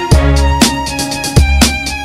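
Background music with a steady beat, deep bass and a held melody line.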